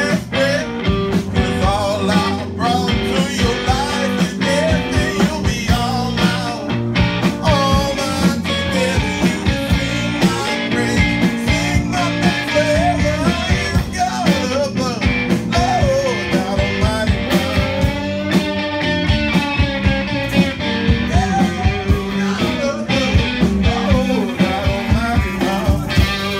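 Live rock band playing amplified in a bar: singing over electric guitar, bass guitar and a drum kit keeping a steady beat.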